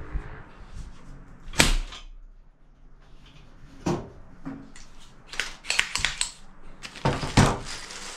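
Powder-actuated fastening tool firing fasteners into a masonry wall: several sharp bangs, the loudest about one and a half seconds in and two more near the end, with lighter clicks and knocks between.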